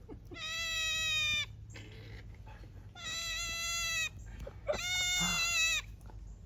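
An animal gives three long, high, meow-like calls, each about a second long, a couple of seconds apart.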